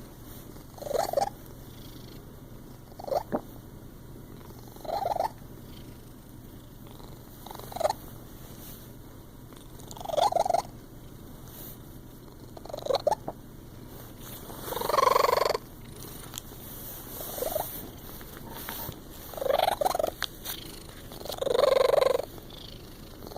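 A cat hiccuping, about ten short jerky sounds spaced two to three seconds apart, with two longer, louder ones in the second half.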